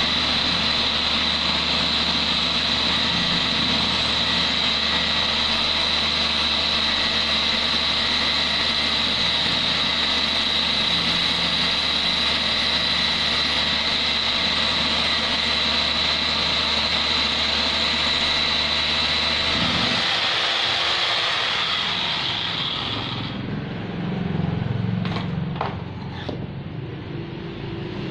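Electric concrete drill (rotary hammer) motor running steadily with a high whine, switched off about 20 seconds in and winding down over a few seconds, followed by a few clicks and knocks.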